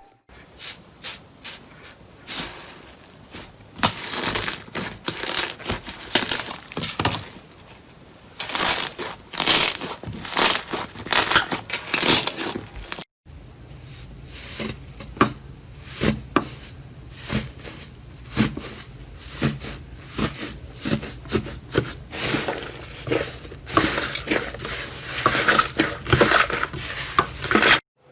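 Slime being squeezed and pressed by hand, giving dense runs of sharp crackling clicks. The sound cuts off abruptly about thirteen seconds in and picks up again with similar crackling.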